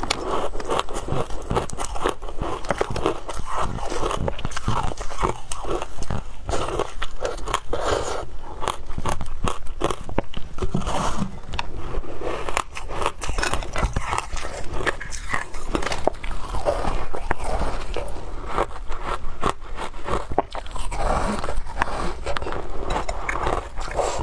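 Close-up crunching and chewing of a block of shaved ice topped with passion fruit pulp: repeated bites breaking the ice, with a dense, continuous crackle.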